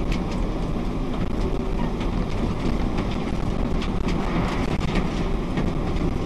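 Steady low rumble of a stopped car's running engine, heard inside the cabin through a dashcam microphone, with a few faint clicks.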